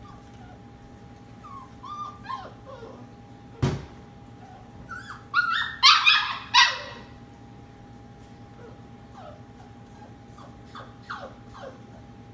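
Labradoodle puppy in a wire crate whimpering and whining in short falling cries, breaking into a few louder yips about five to seven seconds in. A single sharp knock comes a little before the yips. A steady low hum runs underneath.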